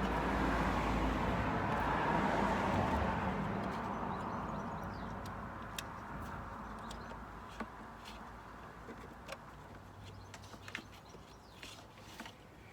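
Vehicle noise fading away steadily over several seconds, like a car passing and moving off, followed by scattered light clicks and taps.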